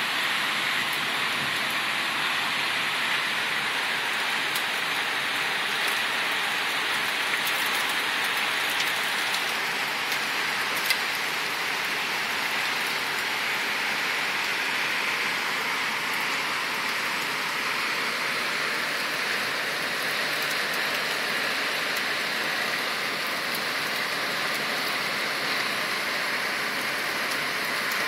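Heavy thunderstorm downpour falling steadily, an even rushing rain noise with one sharp click about eleven seconds in.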